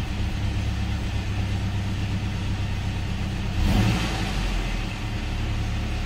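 Toyota 3RZ-FE 2.7-litre four-cylinder engine idling, heard from inside the cab, just after it has been got running again on a new camshaft position sensor. It gives one brief rev a little under four seconds in, then settles back to idle.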